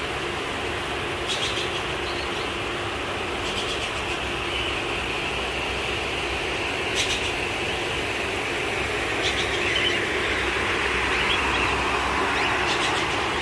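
Steady rushing noise with a low hum underneath, broken about five times by short, high bird chirps from the aviaries.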